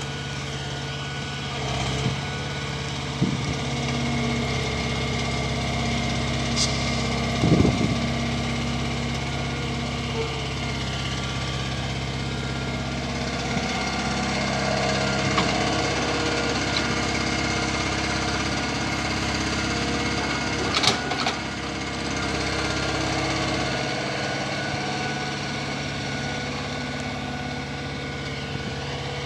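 Diesel engine of an Atlas excavator running steadily while it digs, with a few sharp knocks from the machine. The loudest knocks come about seven seconds in and about twenty-one seconds in.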